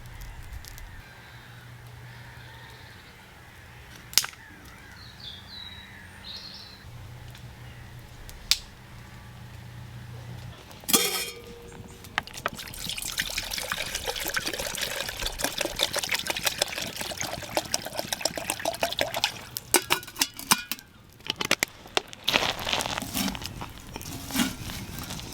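Water being poured, a fluctuating splashing pour lasting several seconds in the second half, after a quieter stretch with a few sharp clicks.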